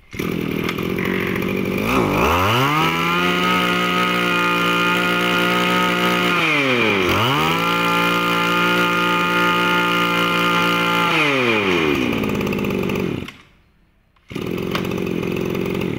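Small two-stroke brush cutter engine running and being revved: it climbs from a low idle to a high, steady full-throttle pitch, drops back to idle and climbs again about seven seconds in, then winds down and cuts off. A rougher noise follows shortly before the end.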